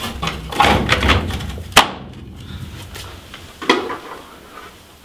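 Whole-house humidifier filter assembly being slid back into its housing on the furnace: rustling and knocks, with a sharp snap just before two seconds in and another knock near four seconds.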